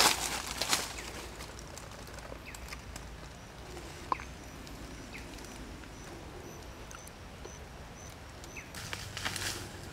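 Dry leaf litter rustling and crunching in the first second and again near the end, with a quieter forest background in between that carries a faint run of short, evenly spaced high chirps.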